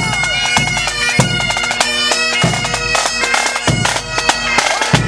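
A pipe band playing: Great Highland bagpipes carry a tune over their steady drones, with a drum beating along in repeated sharp strokes.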